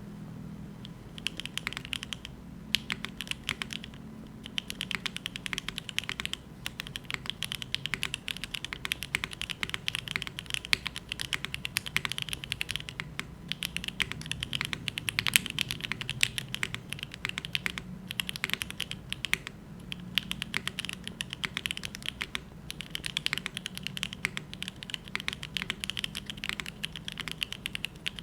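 Continuous fast typing on a gasket-mounted Neo75cu mechanical keyboard with a copper bottom, carbon-fibre plate and no foam, fitted with HMX Sonja scratchy linear switches that bottom out on the rail. Rapid keystroke clacks run on with a few brief pauses, over a faint low hum.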